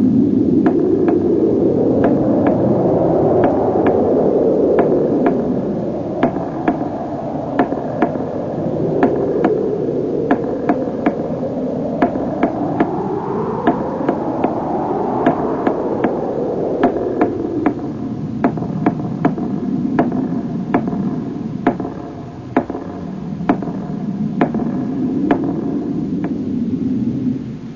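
A whooshing noise that sweeps slowly up and down in pitch, swelling and fading over several seconds at a time, with many sharp clicks scattered through it from about a fifth of the way in.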